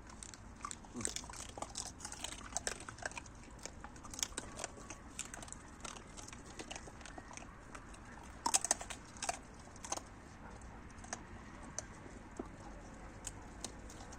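Dogs chewing and crunching their food: a steady run of small crunches and clicks, with a louder flurry about eight and a half seconds in.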